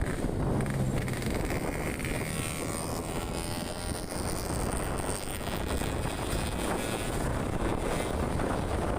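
Vehicle driving along a road: steady engine and road rumble with wind buffeting the microphone.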